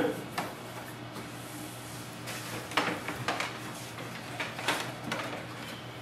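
A few faint clicks and rustles of a USB cable being plugged into the back of a laser printer and handled, over a low steady hum.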